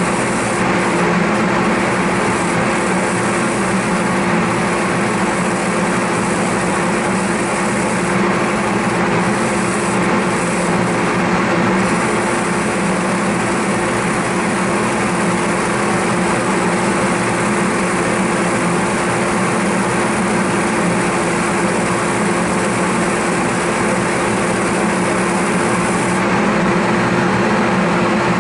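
Workshop dust collector and the motor spinning a French wheel running steadily: a continuous machine hum with one constant tone under an even hiss.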